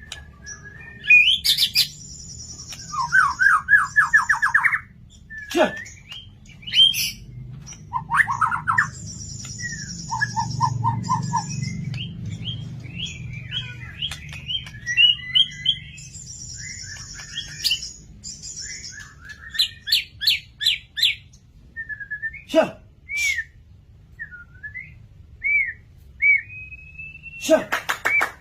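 White-rumped shama (murai batu) in full, varied song: loud whistled phrases, fast trills, repeated buzzy high notes and sharp clicks, following one another with short pauses.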